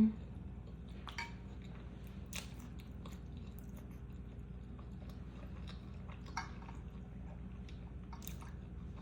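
Close-miked chewing of mac and cheese and boneless chicken wings: scattered soft, wet mouth clicks and smacks over a steady low hum. A brief low hum of the voice right at the start is the loudest moment.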